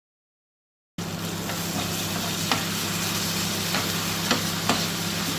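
Stir-fry of ginger, garlic, spring onion and dried red chilies sizzling steadily in a hot pan, with the sauce just added, as it is stirred. A few sharp spatula clicks against the pan, and a steady low hum underneath. The sizzle cuts in suddenly about a second in.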